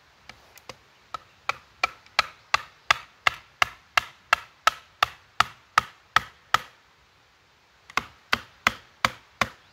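Wooden baton knocking on the spine of a First Edge 5050 fixed-blade knife, driving it down through a log to split it. It is a steady run of sharp strikes, about three a second, that pauses for over a second about two-thirds of the way through and then starts again.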